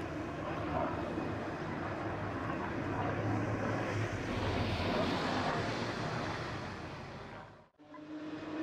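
Aircraft flying over: a steady rushing noise that builds to a peak about halfway through and then fades. It cuts off abruptly near the end.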